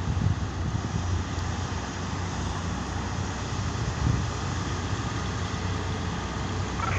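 Heavy diesel mining machinery, an excavator and haul truck working coal, running steadily with a low engine hum and a few low thuds.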